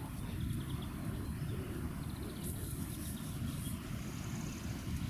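Steady low outdoor rumble, with small birds trilling faintly now and then.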